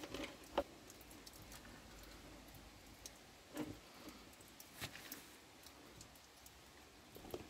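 Faint, scattered clicks and light taps, about half a dozen at irregular intervals, from handling the hand-pump's filler tube as it is drawn out of the rear differential's filler hole and set down.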